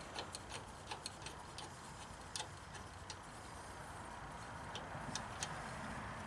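Faint, unevenly spaced metal ticks, about two a second, as a hydraulic hose's threaded end fitting is turned by hand onto a tapered fitting.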